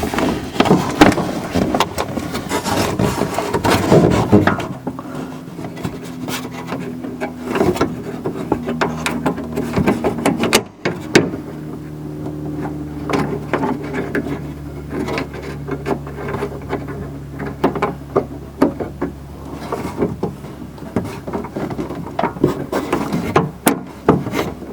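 Irregular plastic and metal clicks, knocks and rubbing from hand work inside a car door, fitting the door handle's lock rod and clip, with a steady low hum underneath from about five seconds in.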